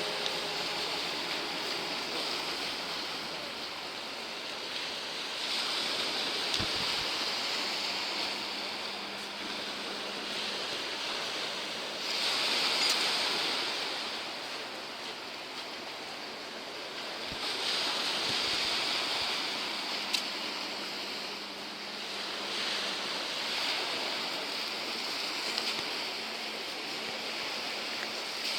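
Sea waves washing onto the shore, the surf rising and falling in surges about every five to six seconds.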